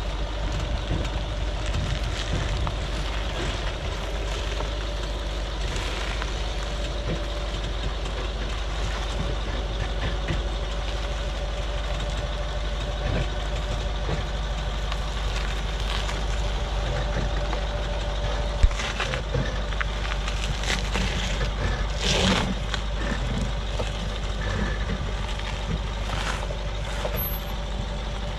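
Range Rover L322's 3.6 TDV8 diesel engine running at low speed as the vehicle crawls down a sandstone rock step, with a few knocks and scrapes of tyres and underbody on rock, the sharpest knock about two-thirds of the way through.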